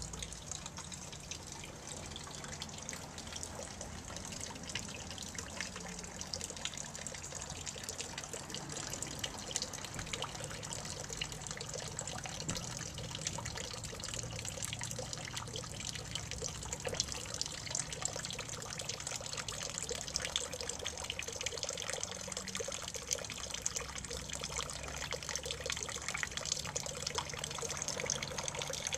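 Pet water fountain trickling steadily, with fine drips and small splashes throughout.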